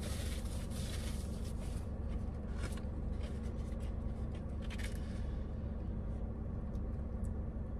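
Close-up eating sounds: chewing with crackly, crunchy noises and small clicks from handling food, busiest in the first five seconds and sparser after. A steady low hum sits underneath.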